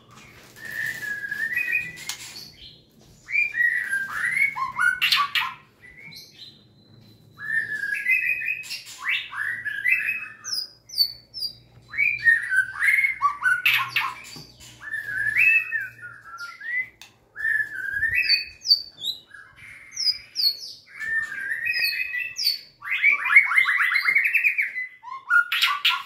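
White-rumped shama singing: a string of varied song phrases with gliding notes, each one to three seconds long, separated by short pauses. The last phrase ends in a fast, even trill.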